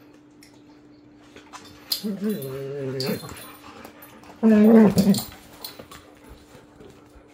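Young Labradors play-fighting: one dog gives a drawn-out low growl about two seconds in, then a louder, shorter growl a couple of seconds later.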